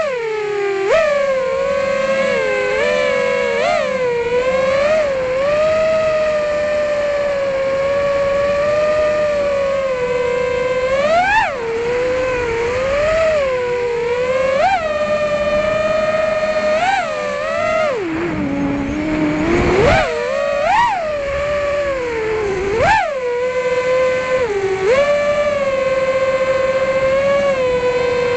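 FPV freestyle quadcopter's brushless motors and propellers whining in flight, the pitch jumping sharply upward each time the throttle is punched and sagging as it is cut, many times over. About two-thirds of the way through, the whine drops low under a rushing noise, then climbs again.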